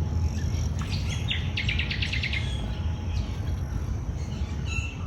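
Birds calling: short high chirps and a rapid trill of about ten notes around one and a half seconds in, with more chirps near the end, over a steady low rumble.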